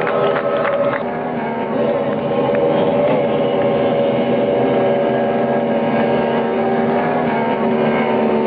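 Racing ski-boat engines running hard at steady high speed, a continuous multi-pitched drone with slight wavering, heard dull through a worn VHS recording; a few clicks in the first second.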